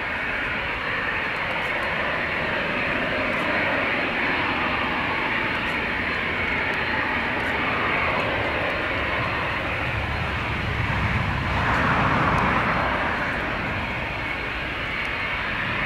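Jet airliner engines running steadily, growing louder about eleven to thirteen seconds in.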